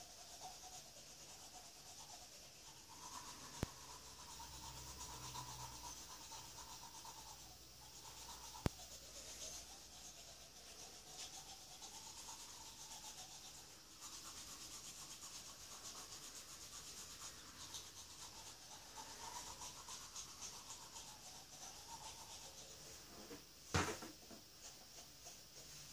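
Manual toothbrush scrubbing teeth, a steady, rhythmic bristle-scrubbing sound. Near the end comes a brief louder burst as he spits into a bucket.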